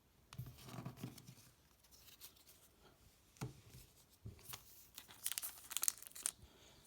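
A football trading card pack's wrapper being handled and torn open, with crinkling and a couple of soft knocks. It ends in a burst of sharp crackling.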